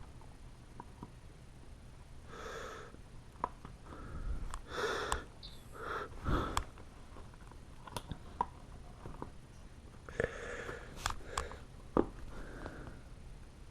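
Hands fitting a laptop hard drive and its brackets into the second drive bay and plugging it in: scattered light clicks and short scrapes of plastic and metal parts, with a few short breathy noises in between.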